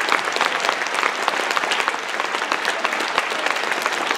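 Concert hall audience applauding steadily: many hands clapping densely together after a song.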